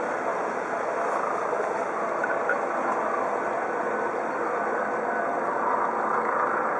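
Eurocopter EC 135 police helicopter flying overhead at low altitude, its rotors and twin turbine engines giving a steady, even noise.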